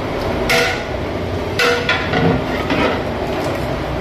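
A long-handled metal ladle scraping and clinking against the side of a large metal cooking pot while a thick chicken curry is stirred, a few separate strokes over a steady low rumble.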